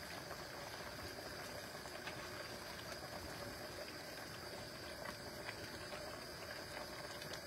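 Creamy soup simmering in a pot on a stove burner that is still on, with the spinach wilting in it: a faint, steady sound with a few small ticks.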